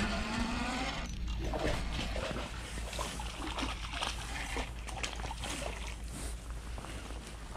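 Hooked crappie splashing at the water's surface as it is reeled in beside the boat: a string of irregular small splashes starting about a second in.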